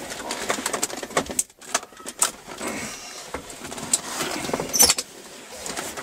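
BMW E36 automatic shift knob being yanked and wrenched on its lever: irregular clicks and knocks of the plastic shifter and lever rattling, with a sharper knock near the end.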